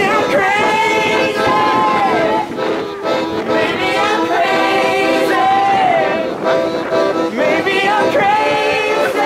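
A small group of people singing together, accompanied by an accordion playing sustained chords.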